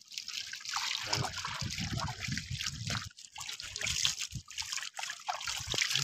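Hands working through a heap of small wet fish and shrimp on a net: a busy wet crackle of many small clicks, with water trickling and dripping off the catch.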